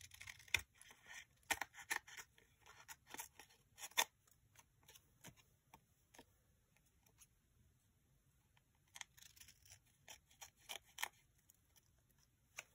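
Scissors snipping paper along the edge of a playing card: a run of short cuts in the first few seconds, a few seconds' pause, then more snips near the end.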